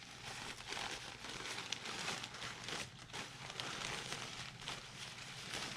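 Packaging rustling and crinkling as it is handled and unwrapped, a steady run of small crackles.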